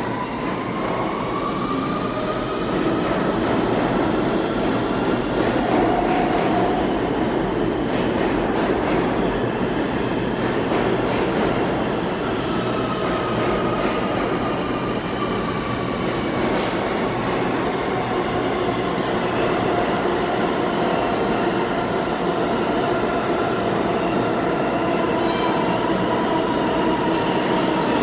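R160 subway train pulling out of the station past the platform: a steady, loud rumble of steel wheels on rail, with a whine in several tones that glides up and later down, and a few sharp clicks from the wheels crossing rail joints.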